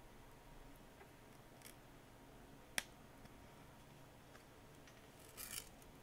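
Plastic opening pick prying along the edge of a Samsung Galaxy S22 Ultra's glued back glass: faint scratchy ticks, one sharp click a little before the middle, and a short scraping rasp near the end.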